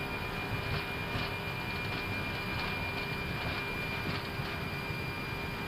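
Airbus A320 cockpit noise on the takeoff roll with takeoff thrust set: a steady rumble of the engines and the wheels on the runway, with a thin steady high tone and faint repeated knocks.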